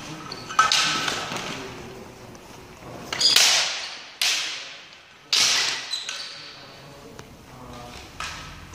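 Bamboo shinai striking in a sparring bout: five sharp cracks at uneven intervals, each followed by an echo that rings on in the large hall.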